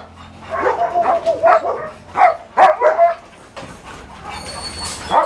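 German Shepherd dogs barking and yelping from their kennel cages: a run of short barks, several in quick succession in the first three seconds.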